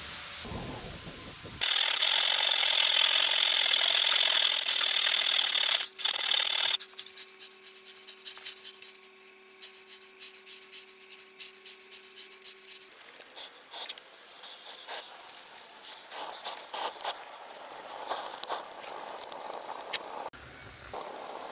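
A loud, steady rushing hiss for about five seconds. Then a quiet stretch with a faint steady hum. From about halfway on, an open wood fire crackles with irregular pops.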